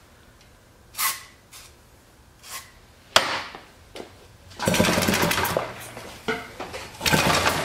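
A couple of short hisses of starting-fluid spray, then a rough mechanical cranking about halfway through and again near the end as the Tecumseh two-stroke engine is spun over by hand with a rope. The engine does not catch.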